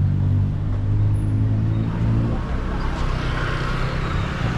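A vehicle engine running with a steady low hum. About halfway through, the hum drops away and a broader rushing noise takes over.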